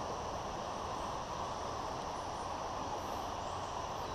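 Steady rush of flowing river water over a shallow riffle.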